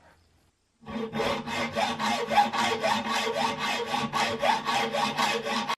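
Hand hacksaw with a Lenox blade cutting a small iron trigger-guard part clamped in a vise. It starts about a second in with steady back-and-forth strokes, about two a second, each carrying a short rising ring.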